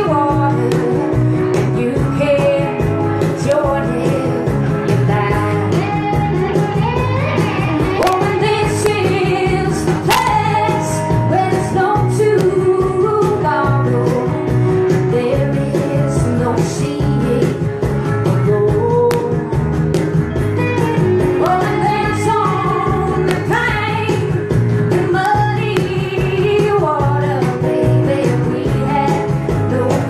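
Live band music: a woman singing over strummed acoustic guitar, electric guitar and a hand-played cajón keeping the beat.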